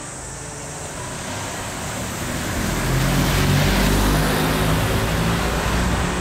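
A motor vehicle passing by unseen: a steady engine and tyre noise that grows louder to a peak about three to four seconds in, then begins to ease.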